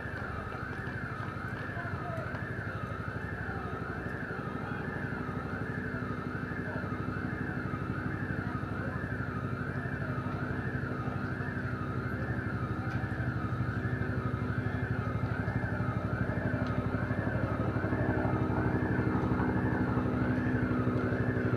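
Ambulance siren wailing, sweeping up and down about once a second without a break. A vehicle engine runs underneath, growing louder near the end as the ambulance draws close.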